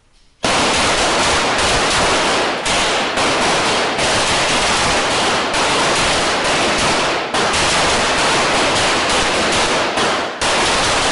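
9mm pistol gunfire on a covered firing range, the shots running together into a loud, dense, near-continuous noise that starts suddenly about half a second in and dips briefly a few times.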